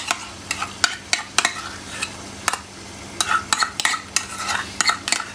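A metal spoon clinking and scraping against a bowl as yogurt is spooned into a pot of frying chicken: a string of irregular sharp clicks over a low sizzle.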